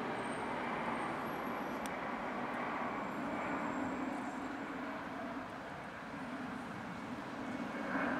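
Airbus A320's twin jet engines at takeoff thrust during the takeoff roll: a steady, loud rushing noise that eases slightly past the middle as the aircraft moves away.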